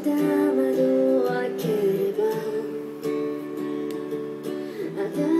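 Background pop music: plucked acoustic guitar or ukulele with held melody notes, part of a Japanese song with female vocals.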